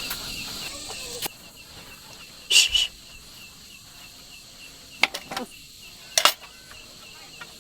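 Night insects, crickets, chirping in a steady, fast-pulsing trill. Three short, sharp noises stand out above it, about two and a half, five and six seconds in.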